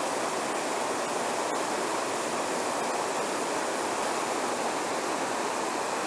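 Steady, even rush of a small waterfall spilling down stepped rock ledges into a shallow creek.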